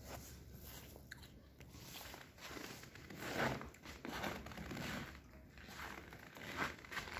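Footsteps crunching on a gritty, debris-strewn concrete floor, a few steps about a second apart from a couple of seconds in.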